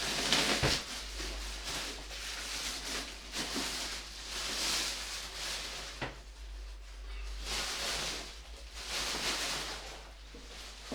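Packing material being pulled off and handled: repeated rustling swells, with a sharp click about six seconds in.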